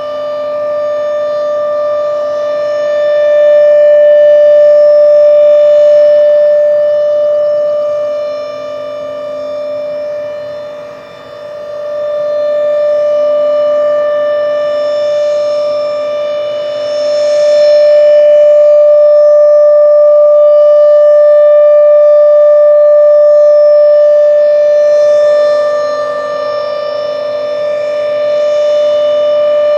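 Thunderbeam RSH-10 rotating outdoor warning siren sounding a steady low-pitched alert tone. It swells loud and fades as the rotating horn turns toward and away, which is typical of how directional these sirens are.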